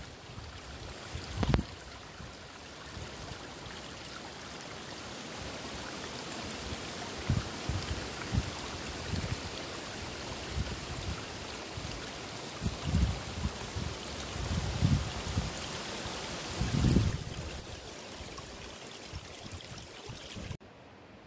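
Small rocky mountain brook rippling and trickling over stones, with a few short low thumps along the way. The water sound fades near the end.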